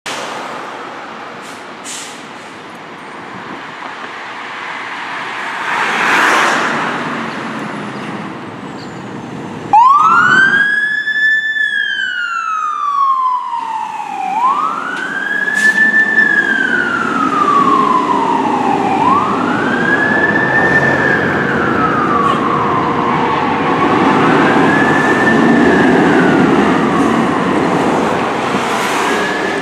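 Fire engine's siren wailing, with its pitch winding up quickly and then sliding slowly down, about every four to five seconds; the siren comes in suddenly about ten seconds in. Before that, steady street traffic noise swells as a vehicle passes.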